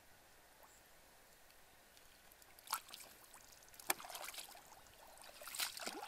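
Shallow muddy water splashing and sloshing in short bursts as someone wades and gropes in it by hand, starting after about two and a half seconds, with one sharp knock about four seconds in.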